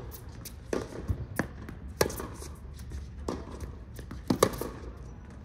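Tennis rally on a hard court: a series of crisp pocks from the ball being struck by rackets and bouncing on the court, spaced about half a second to a second apart. The loudest pair comes a little past four seconds, when the near-side player strikes the ball.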